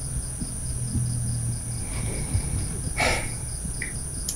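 Crickets chirping: a continuous high trill with an evenly pulsed chirp beneath it, over a low steady hum. A brief noise about three seconds in.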